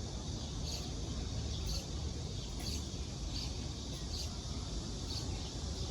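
Outdoor background noise: a steady low rumble with faint, short high chirps every second or so.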